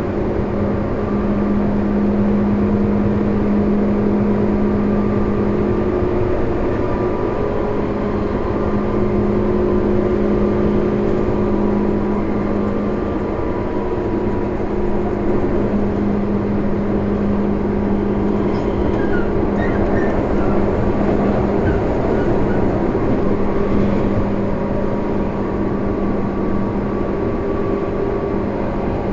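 Tobu 10030 series electric train running at a steady speed, heard from inside a passenger car: a constant rumble of wheels on rail with a steady low hum.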